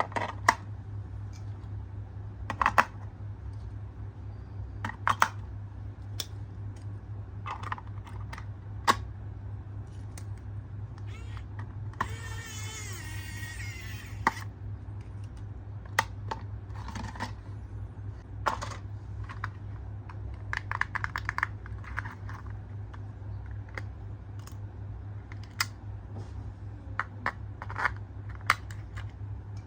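Irregular light clicks and taps of small plastic toy parts and packaging being handled, over a steady low hum. About twelve seconds in there is a rasping noise lasting roughly two seconds.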